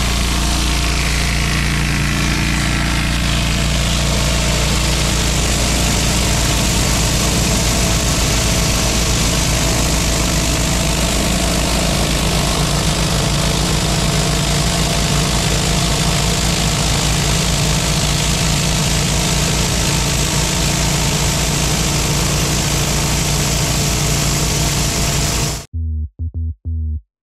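Gas-powered pressure washer engine running steadily with the hiss of high-pressure water spraying on concrete. It cuts off suddenly near the end, giving way to choppy bursts of electronic music.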